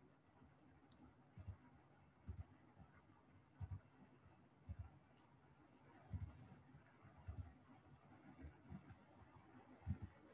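Faint computer mouse clicks, about eight over the stretch, each a quick pair of clicks, against near silence.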